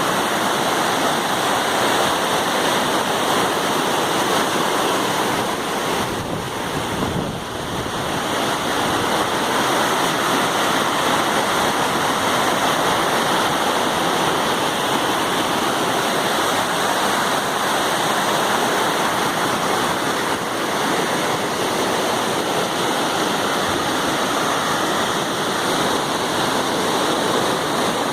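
Waterfall: falling water rushing steadily, dipping briefly in level about seven seconds in.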